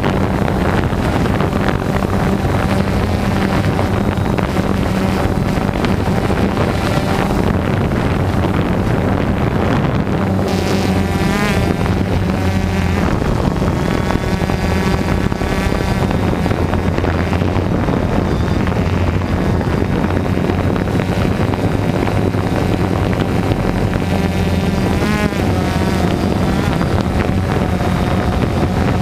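Quadcopter drone's electric motors and propellers whirring in flight, a steady buzz with a whine that wavers up and down as the drone manoeuvres, with some wind noise on the microphone.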